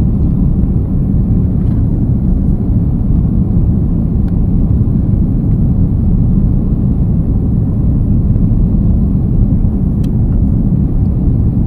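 Airliner engine and airflow noise heard inside the passenger cabin: a steady low rumble with a couple of faint ticks.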